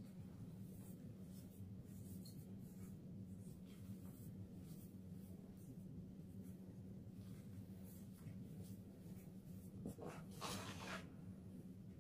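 Blocks of reformed gym chalk crunching and crumbling as they are squeezed and broken apart by hand in a tub of loose chalk powder: soft scratchy crackles throughout, with one louder crunch about ten seconds in. A low steady hum runs underneath.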